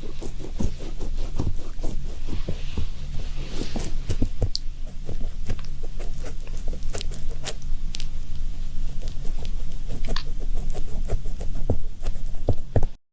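Rapid, irregular tapping and scratching close to the microphone, over a steady low hum, cutting out briefly near the end.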